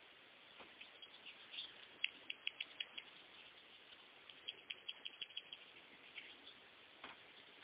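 Faint, quick, light clicks and taps in two short runs, from a kitten playing with a plastic water-bottle cap.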